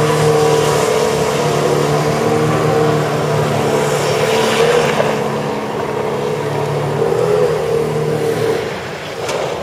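A pickup truck's engine held at high, steady revs during a burnout on wet ground, then dropping off near the end.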